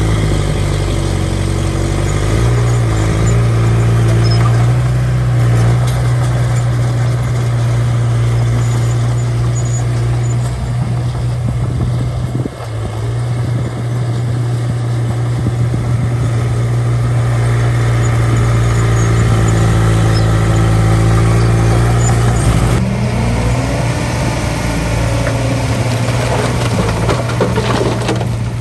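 Small bulldozer's diesel engine running steadily under work, its pitch sagging and recovering about two-thirds of the way through, with some clatter near the end.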